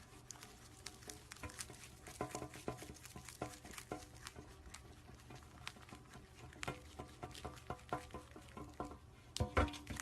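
Faint, irregular patter of small clicks and taps, a few of them louder near the end, over a low steady hum.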